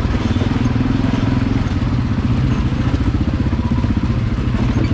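ATV engine running steadily under way, a low rapid pulsing drone.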